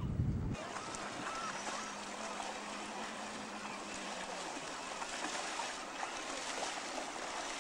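Steady hiss of water and small waves, with the low hum of a small skiff's outboard motor for a few seconds, after a short rumble of wind on the microphone that cuts off suddenly near the start.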